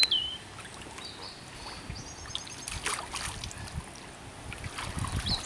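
Lake water splashing and lapping around an angler's hands and waders as a large carp is let go, with louder splashes about three seconds in and again near the end.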